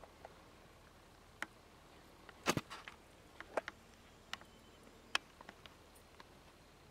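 Scattered sharp clicks and taps over a faint steady hiss, with the loudest cluster about two and a half seconds in.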